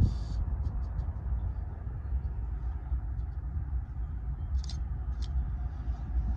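Low, steady rumble of a distant diesel-electric freight locomotive backing slowly into the yard. Two short, high chirps come a little past the middle.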